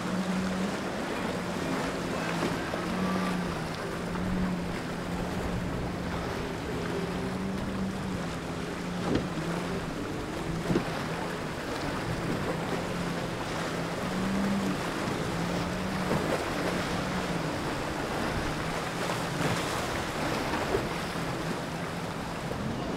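Motorboat engine running steadily with a low, slightly wavering hum, over wind on the microphone and the wash of water. Two brief knocks stand out partway through.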